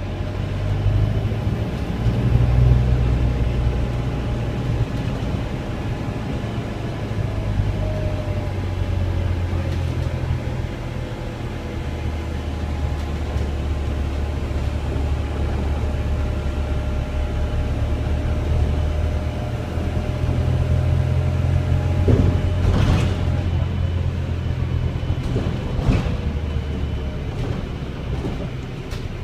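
Volvo B5LH hybrid double-decker bus on the move, heard from inside the lower deck: a steady low drivetrain rumble, with a faint whine that falls in pitch twice and two sharp knocks in the second half.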